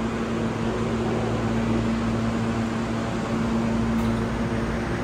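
R160 subway train standing in the station with its doors open, its air-conditioning and onboard equipment giving a steady hum with a low held tone underneath.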